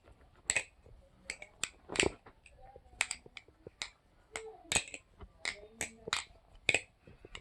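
Converted balisong trainer being flipped: its handles and pins clicking and clacking in a string of sharp, irregular clicks, roughly two a second.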